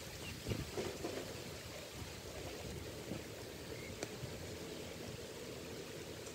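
Light rain falling on a lake's surface and its lily pads: a steady patter of drops, with a few louder taps, most of them in the first second.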